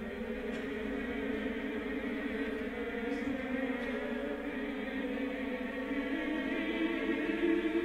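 Background music: a sustained chant-like choral drone of held notes, slowly growing louder.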